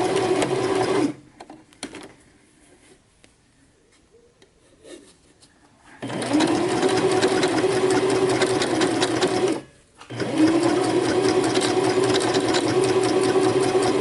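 Husqvarna electric sewing machine stitching at a steady speed. It stops about a second in, leaving a few faint clicks, starts again after about five seconds, pauses briefly near ten seconds, and runs on, sounding a little rough.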